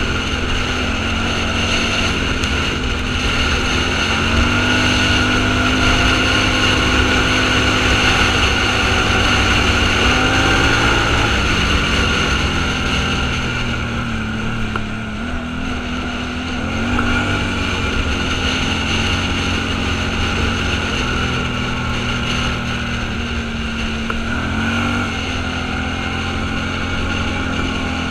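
Off-road vehicle's engine running steadily, its revs stepping up and down several times as it is driven.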